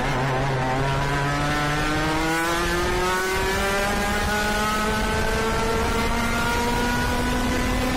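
IAME KA100 100cc two-stroke kart engine accelerating, its pitch rising slowly and steadily for several seconds. A lower steady engine drone fades out about three seconds in.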